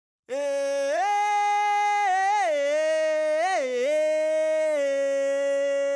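A single voice singing a slow, wordless melodic phrase: long held notes joined by smooth glides up and down in pitch, starting a moment in.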